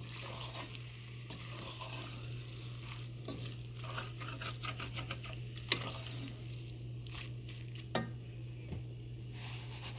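Marinated chicken pieces sizzling in hot oil and spices in a pan while being stirred, with occasional knocks of the stirring utensil against the pan, over a steady low hum.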